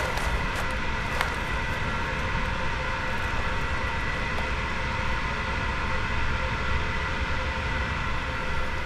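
Steady droning rumble with a faint high hum over it, and a few light ticks in the first second or so.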